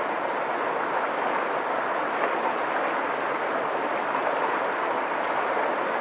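Fast, turbulent river water rushing steadily.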